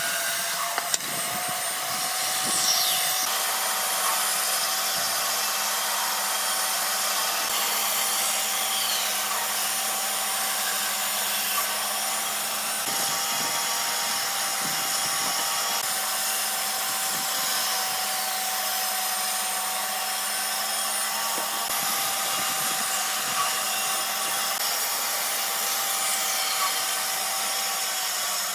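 An electric power tool running steadily while working wood: a constant whine over a hiss.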